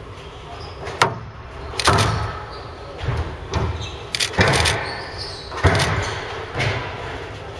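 Squash rally: the ball struck by rackets and smacking off the walls of a glass-backed court, about six sharp hits, irregularly spaced a second or so apart, echoing in a large hall.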